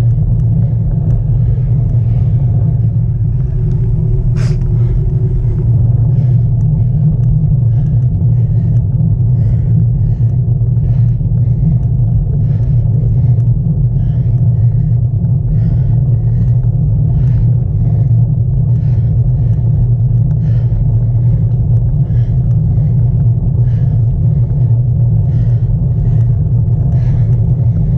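Steady wind and road rumble on a bicycle-mounted camera riding at speed, a loud, even low rumble.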